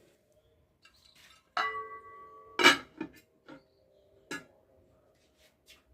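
Metal pot and lid clanking: one knock rings on briefly, then four or five sharper knocks follow over the next three seconds.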